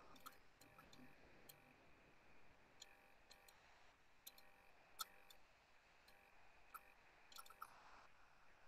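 Near silence: faint, scattered clicks over a low steady hiss, the sharpest click about five seconds in.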